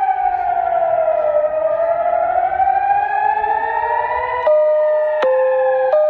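Air-raid warning siren wailing, its pitch falling and then rising slowly, sounding a rocket-attack alert. From about two-thirds in, a second siren joins it, switching between two tones roughly every 0.7 seconds.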